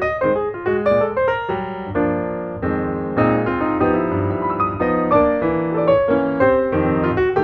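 Piano music, with a quick run of notes over held chords.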